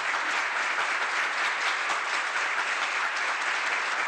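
Studio audience applauding steadily, a dense even clapping from many hands.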